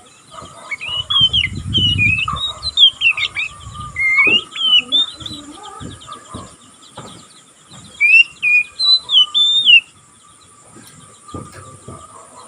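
Young oriental magpie-robin (kacer) giving its rapid 'ngeriwik' chatter of short, quickly bending whistled notes. It comes in two spells with a pause between them: the twittering of a young bird that has not yet learned full song. A low rumble sounds about two seconds in.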